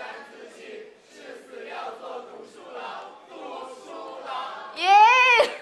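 Audience chanting in unison, a rhythmic call of many voices; near the end one loud voice rises and falls over it.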